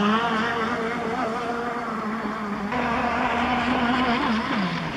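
Radio-controlled racing powerboat's engine running at high speed. Its pitch rises at the start, holds with small wavers, and dips near the end.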